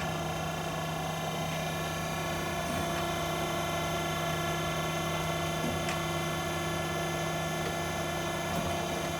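Okamoto Accugar 124 surface grinder running under power, its motors giving a steady hum made of several steady tones.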